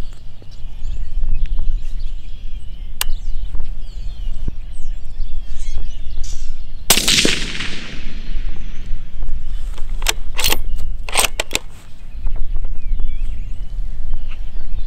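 A single suppressed rifle shot from a .243 Winchester Ruger American Predator fitted with a Griffin Armament Recce 7 suppressor, about seven seconds in, with its report trailing off over the next second. A few sharp clicks follow about three seconds later, over a steady low rumble of wind on the microphone.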